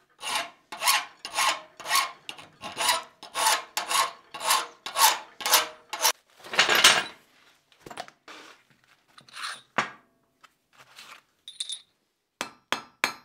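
Hand file scraping back and forth across the edge of a steel hook blank held in a vise, about two steady strokes a second, shaping its profile; after about seven seconds the strokes become fewer and quieter. Near the end, quick hammer blows on red-hot steel at the anvil begin.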